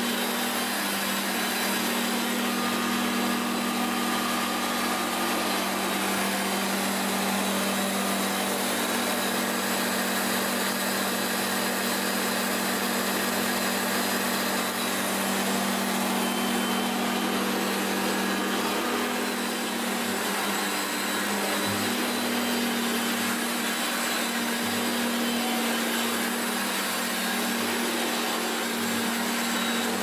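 1982 Hoover Concept One upright vacuum cleaner running while pushed over carpet: a steady motor drone with a low hum under the rush of air.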